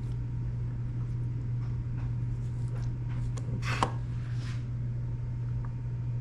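Steady low hum with a few faint ticks of small parts being handled, and one sharp knock about four seconds in.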